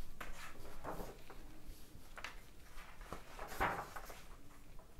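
Paper pages of an old magazine being handled and turned over, a few short rustles, the loudest about three and a half seconds in.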